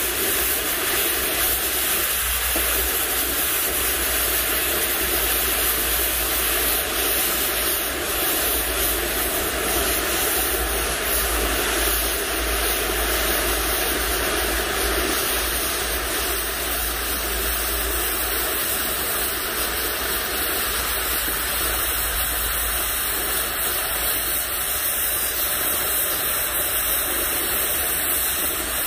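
Oxygen cutting torch hissing steadily as it cuts through steel.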